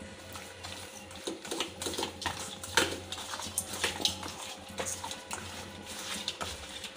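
A hand kneading raw katla fish pieces with salt and turmeric in a steel bowl: wet squelching and irregular clicks of fish and fingers against the bowl.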